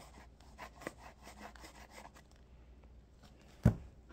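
Slime being mixed in a bowl: a run of small scraping, sticky clicks, then a single low thump a little before the end, the loudest sound.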